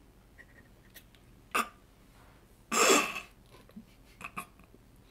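A person's short nonverbal vocal sound, falling in pitch, about three seconds in, preceded by one brief sharp sound about a second and a half in, with a few faint ticks after it.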